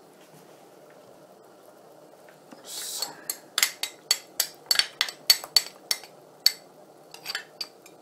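A spoon clinking and scraping against a small glass dish as almond butter is scraped out into a pot of soup. There is a short scrape about three seconds in, then a quick, uneven run of about fifteen sharp clinks over the next four seconds.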